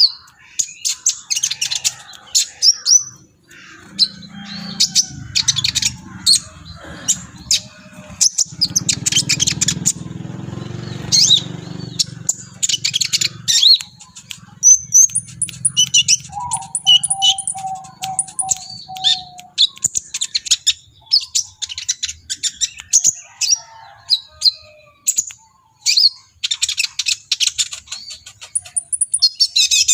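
A sunbird (the 'kolibri ninja' of Indonesian bird-keepers) singing in rapid bursts of high, twittering chirps and trills, in the excited full song keepers call 'gacor'. A low rumble runs under the song through the first half.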